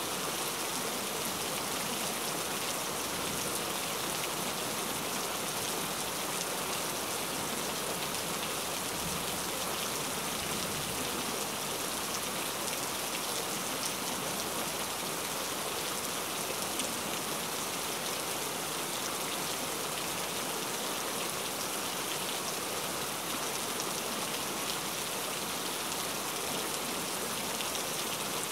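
Steady rain: an even hiss with a fine patter of drops.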